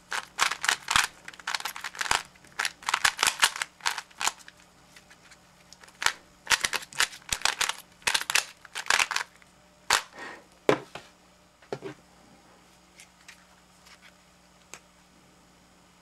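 A plastic Rubik's 3x3 cube being turned quickly by hand while it is solved. Its layers clack in rapid bursts of many clicks for about ten seconds, then give only a few scattered clicks.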